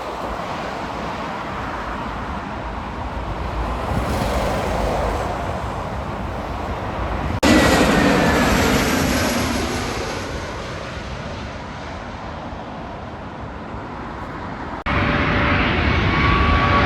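Jet airliner engine noise: a steady rushing with faint whining tones. It changes abruptly twice, about halfway through and near the end, each time getting louder, as where separate recordings are joined. There is a faint falling whine after the first jump and steady whine tones after the second.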